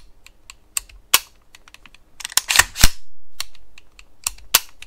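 Sharp metallic clicks and snaps of an AR-15's fire-control group during a function test: the Radian Talon ambidextrous safety selector clicking between safe and fire and the hammer snapping as the trigger is pulled. A dozen or so separate clicks, the loudest cluster about two and a half seconds in.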